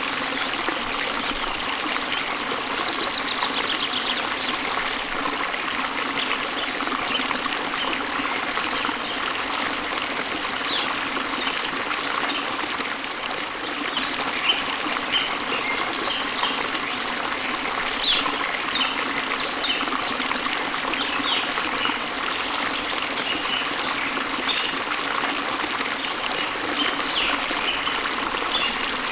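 Steady rush of running water from a waterfall, with short, high bird chirps scattered over it, more of them in the second half.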